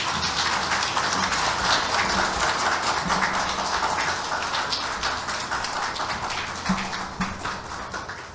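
Audience applauding, a dense patter of many hands clapping that fades toward the end.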